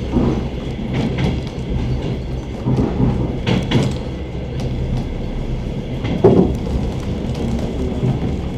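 Suburban train's wheels clacking over rail joints over the steady low rumble of the moving carriage, heard from inside the train. A handful of sharper knocks stand out, the loudest about two-thirds of the way through.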